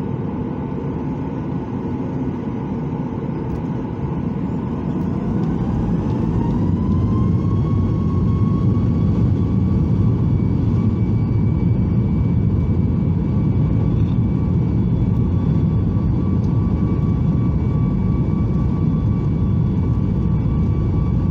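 Boeing 737 MAX 8's CFM LEAP-1B jet engines heard from inside the cabin, spooling up to takeoff thrust. A whine rises in pitch and the engine noise grows louder about five to eight seconds in, then holds steady over a low rumble as the takeoff roll begins.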